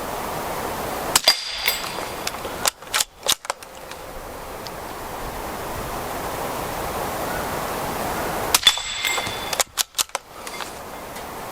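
Two shots from a CZ 455 bolt-action .22 LR rifle firing standard-velocity rimfire ammunition, about seven seconds apart. Each crack has a short high metallic ring after it, and a cluster of sharp clicks follows about a second and a half later as the bolt is worked.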